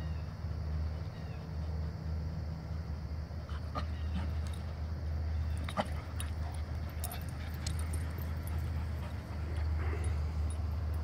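Dogs playing rough together, with short whines and yips among the scuffling and a few sharp clicks through the middle. A steady low rumble runs underneath.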